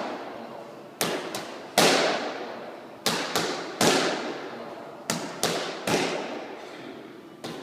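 Boxing gloves striking focus mitts in quick three-punch combinations: a sharp smack, then a pause of about a second before the next combination, about ten punches in all. Each smack echoes in a large, hard-walled room.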